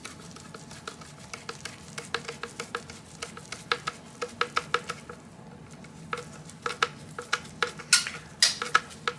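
Screwdriver tightening a stock screw on an M1 carbine: a run of small, irregular metallic clicks and ticks from the bit and screw, with a short pause about five seconds in.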